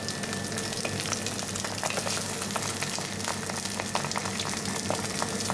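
Sea bream fillet frying skin-side down in hot oil in a nonstick pan: a steady sizzle with frequent small crackles and pops.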